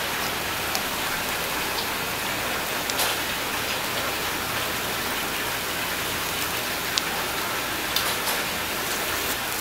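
Raw eel fillets sizzling on a hot grill: a steady frying hiss, with a few sharp clicks through it.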